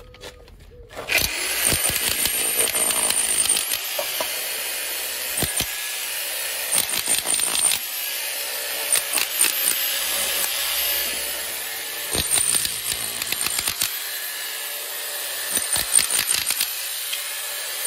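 Parkside PAH 1300 B1 electric demolition hammer starting about a second in and then hammering steadily, its chisel breaking up an old stone-and-brick wall, with sharp knocks of masonry chunks cracking off.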